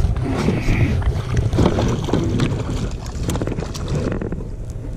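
Wind buffeting the microphone on a fishing kayak, a steady low rumble, with scattered short knocks and water sounds around the boat.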